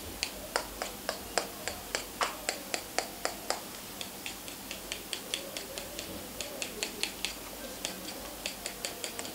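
Metal spoon clicking against the side of a bowl at a steady rhythm of about three strokes a second, as an omelette's egg mixture is stirred and beaten.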